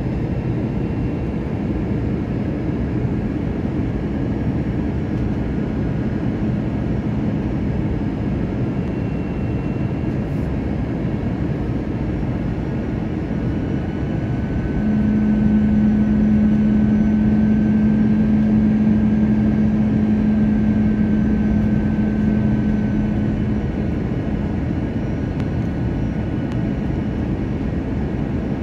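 Airliner cabin noise on the approach to land: a steady rush of air and engine noise. A low engine hum grows louder about halfway through, holds for several seconds, then eases back.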